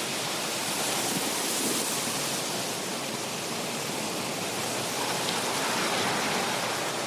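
Sea waves washing on a shore: a steady rushing hiss that swells gently twice, about a second in and again around five to six seconds in.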